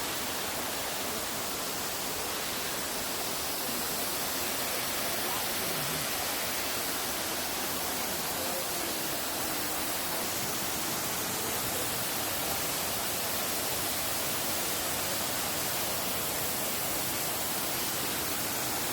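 Waterfall cascading into a pool: a steady, unbroken rush of falling water.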